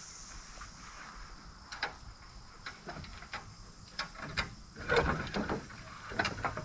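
Scattered metal clicks and knocks of an old spike-tooth harrow's teeth being set, bunched together about four to five seconds in.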